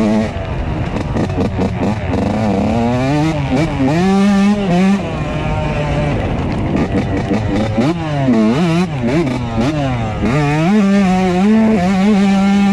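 2003 Yamaha YZ125's single-cylinder two-stroke engine being ridden hard, revving up and down again and again as the throttle is rolled on and off, and holding steady high revs near the end.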